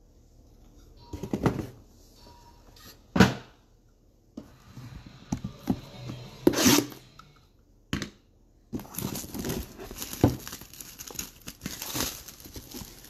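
Cardboard trading-card box handled by hand, with a few knocks and thumps. From about nine seconds in, its packaging crinkles and tears steadily as it is being opened.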